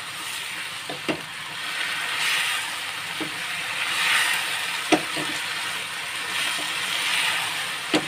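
Bitter gourd and vegetables in sauce sizzling in a nonstick frying pan as they are stirred with a spatula. The hiss swells and eases with the stirring, and the spatula knocks against the pan four times.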